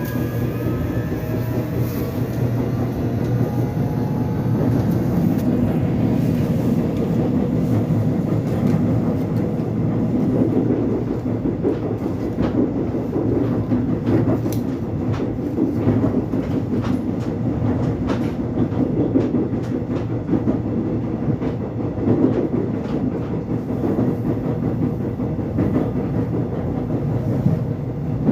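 Korean commuter express train running between stations: a steady rumble of wheels on track, with short clicking of the wheels over rail joints that comes more often after about ten seconds in.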